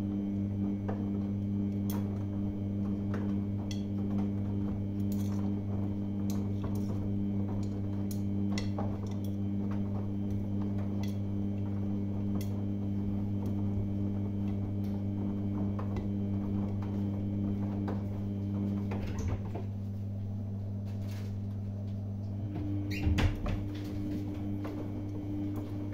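Samsung front-loading washing machine in its main wash: the drum motor hums steadily while the laundry tumbles, with many light clicks of items against the drum. The motor stops about 19 seconds in for a few seconds, then the drum starts turning again with a brief knock.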